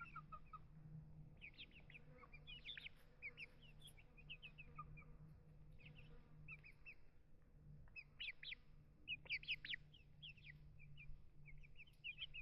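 Faint, high chirping of small birds, short calls coming in quick clusters several times, over a low steady hum.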